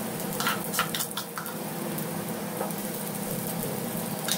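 Vegetable pakoras deep-frying in a pan of oil: a steady sizzle. Several short sharp clicks and pops come in the first second and a half as batter is spooned into the oil.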